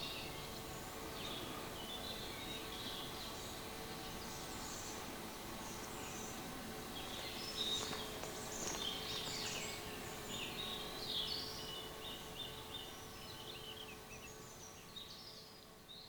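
Songbirds chirping and singing outdoors over a faint steady hum, fading out near the end.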